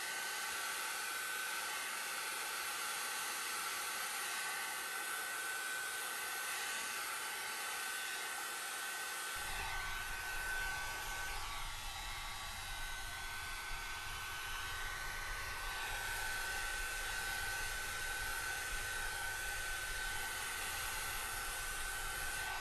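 Handheld ceramic hot air brush (a hair-dryer-style styling tool) blowing steadily: an even airy rush with a thin high whine. The sound fills out at the low end about nine seconds in.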